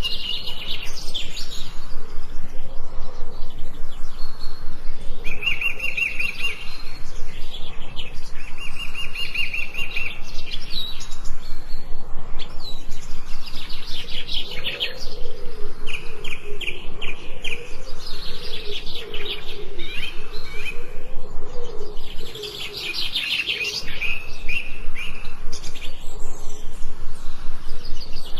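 Several songbirds singing in a forest: repeated rapid trills and chirps, some held, some broken into quick notes. Through the middle a lower wavering call runs underneath the chirping.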